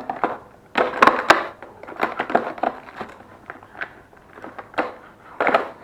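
Rustling and crinkling of packaging, with irregular small clicks and knocks, as engine bearing shells are unpacked by hand.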